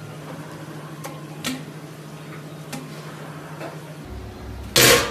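Kitchen background: a steady low hum with a few faint clicks. About four seconds in, the hum stops. Near the end there is a short, loud burst of noise.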